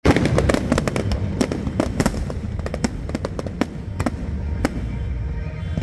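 Fireworks going off: a rapid run of sharp crackling pops, dense in the first couple of seconds and thinning out after, over a steady low rumble.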